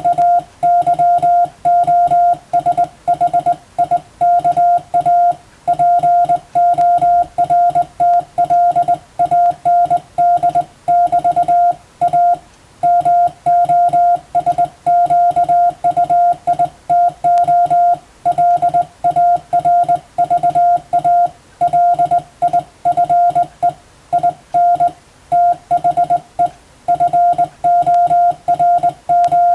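Morse code (CW) sent on a telegraph key: a steady mid-pitched tone keyed on and off in short dits and longer dahs, spelling out European-alphabet telegram text for receiving practice.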